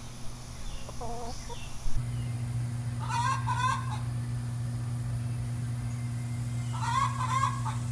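A hen giving her egg-laying cackle, a celebratory call made after laying. It comes as a short call about a second in, then two louder calls about four seconds apart, over a steady low hum that starts about two seconds in.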